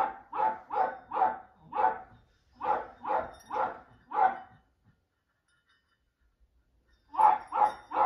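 A dog barking in a quick, even run of about two barks a second, stopping for a couple of seconds past the middle and starting again near the end.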